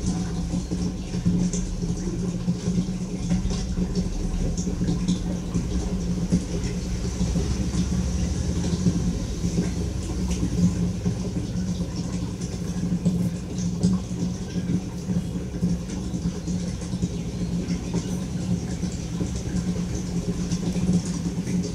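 A steady low mechanical hum, as of a motor running, with a faint hiss above it.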